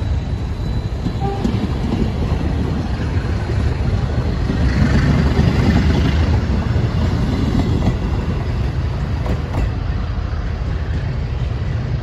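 Passenger coaches of a departing train rolling slowly past on their wheels and rails, loudest about halfway through as the last coach goes by.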